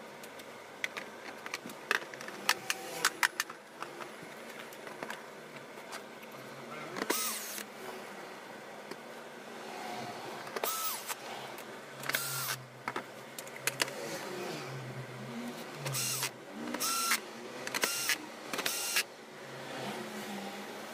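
Reassembling an LCD monitor's plastic case: the back cover is knocked and clicked into place. Then a small electric screwdriver drives the case screws in a series of short whirring runs, about seven in the second half.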